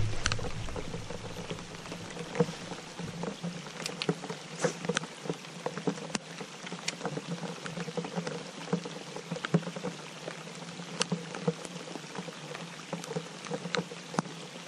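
Rain falling on the lake and the boat: a steady hiss with scattered, irregular sharp taps of individual drops, over a faint steady low hum.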